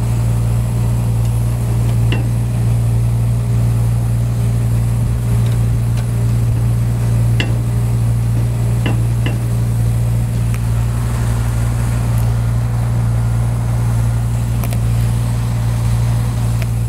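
Diesel engine running at a steady idle, with a few faint metal clicks as the spray bar's fold-down material drops are handled.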